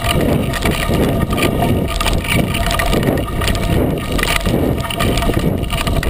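Knobby 36-inch Coker unicycle tire rolling down a dry dirt trail: a loud, continuous gritty crunching and rattle, with wind buffeting the microphone.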